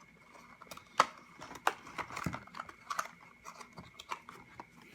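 Handling noise: scattered small clicks and light rustling as yo-yos are set down and picked up, with the sharpest click about a second in.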